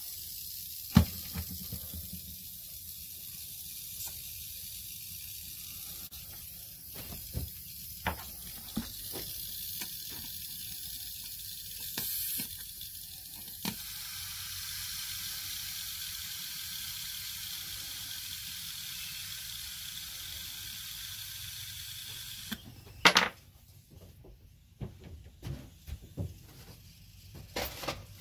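Air hissing steadily out of a small puncture in an inflated rubber inner tube, cutting off suddenly about 23 seconds in. A few knocks from handling the tube are heard during the hiss, and the loudest knock comes just after the hiss stops.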